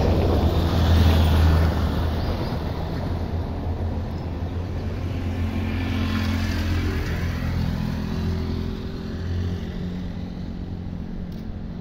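Motor vehicle engine running past on the street, a low steady drone that is loudest in the first couple of seconds and slowly fades. A second swell of passing-traffic noise rises and falls about six seconds in.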